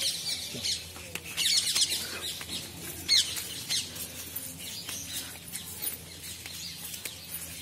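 Small birds chirping: short high calls, with a burst about a second and a half in and another clear chirp around three seconds.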